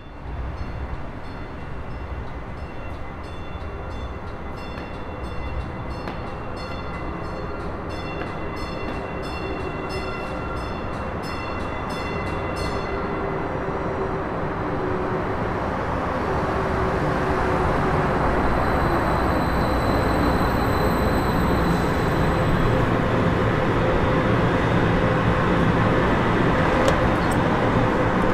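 Denver RTD light rail train pulling into the station: its bell rings in rapid repeated strokes for the first half, then the running noise of the train grows steadily louder as it comes in alongside.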